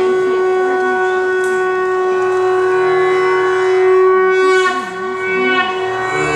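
A wind instrument holds one long steady note for about four and a half seconds over a low drone, with a wavering lower line beneath it; the held note breaks off near the end.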